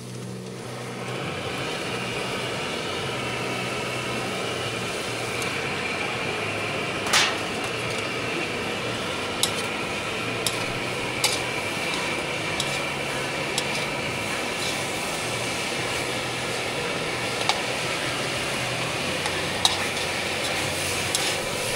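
Steady cooking noise from a camp stove and pan, starting about a second in, with a few sharp clicks of a utensil against the pan.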